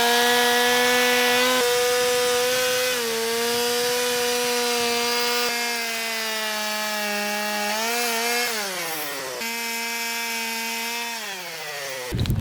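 Chainsaw running at full throttle through wood, holding a steady high pitch. About eight and a half seconds in it bogs down and winds down, is heard at full speed again, then stops abruptly just before the end.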